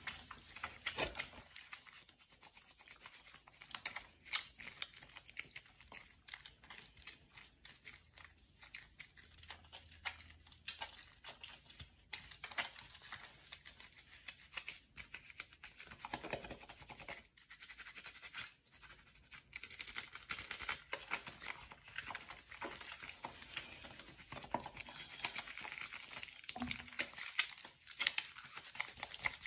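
Soap-lathered hands rubbing and scrubbing together, a faint, irregular wet crackling of foam between palms and fingers.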